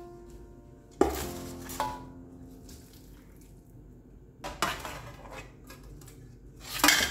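Metal bowls clanking and a plastic spoon knocking and scraping against them as ground fish is scooped from an aluminium basin into a stainless steel chopper bowl, with a few sharp clanks, the loudest about a second in and near the end. Soft piano music plays underneath.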